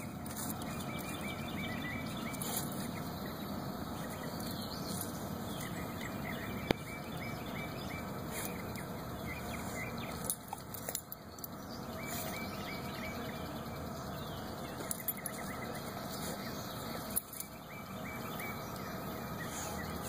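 Outdoor ambience: a steady background hiss with small birds chirping now and then, and a few sharp clicks, the loudest about seven seconds in.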